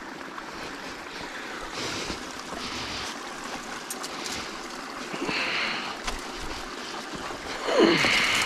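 Gloved hands working in a shallow stream among brush: water sloshing and splashing, with twigs and branches rustling and cracking in short bursts. A louder burst comes near the end.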